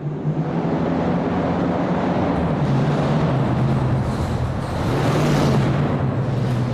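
Muscle car V8 engine running with a deep, steady, lumpy rumble; its pitch sags slightly about two and a half seconds in, and it grows a little louder and brighter around five seconds.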